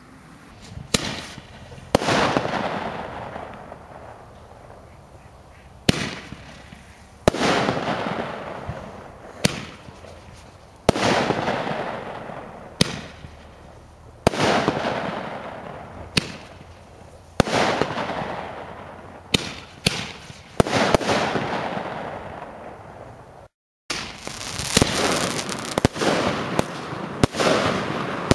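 Consumer fireworks cakes firing shot after shot: a sharp bang roughly every one and a half to two seconds, each followed by a long fading tail. After a brief break near the end, a 16-shot 25 mm kamuro cake fires with the shots coming faster.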